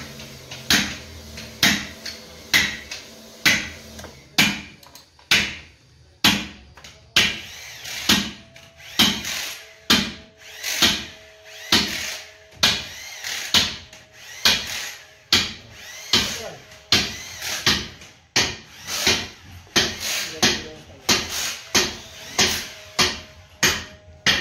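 Cylinder-honing machine polishing a tractor engine's cylinder sleeve. Its spindle strokes in the bore with a sharp metallic clack roughly once a second, over a faint steady motor hum.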